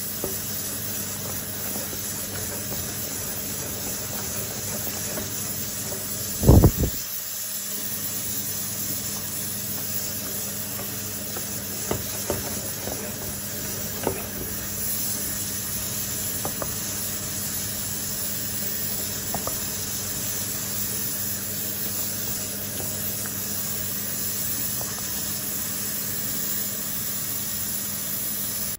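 Spoon stirring and beating thick coxinha dough in a steel pot, with a few light knocks against the pot and one heavy bump about six and a half seconds in. A steady hiss runs underneath.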